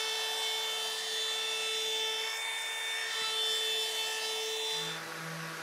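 Cordless compact trim router running with a steady high whine as it cuts an eighth-inch roundover along the edge of a wooden table apron. Near the end the sound changes to a lower, steadier hum.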